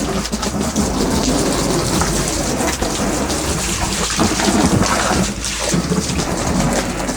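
Garden hose spraying water into a tipped-up hot tub shell, a steady rushing splatter of water.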